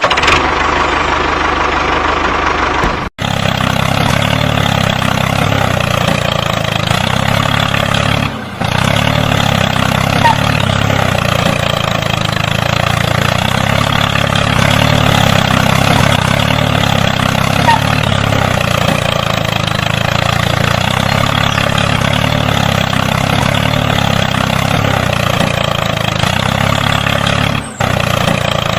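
An engine running steadily at idle, with short breaks about three, eight and a half and twenty-eight seconds in.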